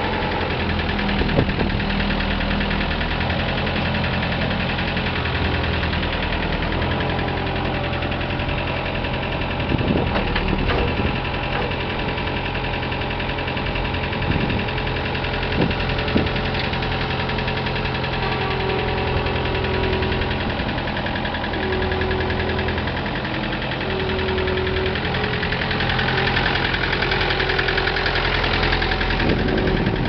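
Thomas skid-steer loader's engine running steadily as the machine drives and turns, with a few short knocks scattered through.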